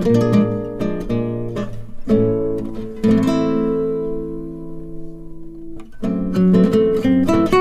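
Background music on acoustic guitar: plucked and strummed notes, with a chord left ringing for a few seconds in the middle before quick picking resumes.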